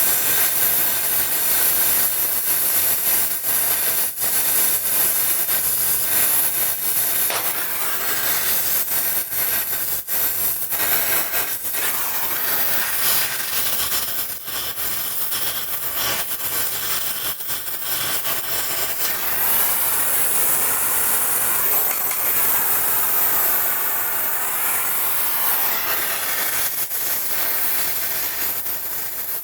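Gas brazing torch flame hissing steadily as a copper pipe socket joint is brazed, with a few light clicks mixed in.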